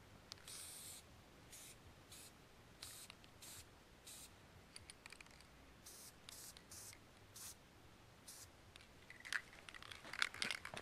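Krylon aerosol spray paint can hissing in a series of short spurts, a dozen or so, a few held for about half a second. A few light clicks and footsteps come near the end.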